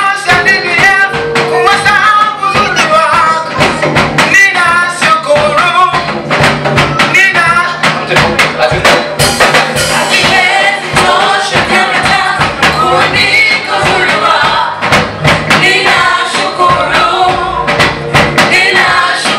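Praise and worship music: a group of singers over a band with a steady beat and a bass line.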